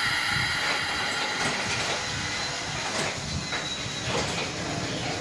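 Slam-door electric multiple unit train rolling slowly along a platform: a steady running noise with a high whine, and a few clicks of the wheels over rail joints.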